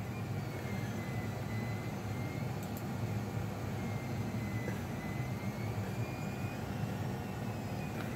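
A film soundtrack playing through the old TV cabinet's large speaker, between lines of narration: a steady low engine-like rumble with a faint wavering high tone.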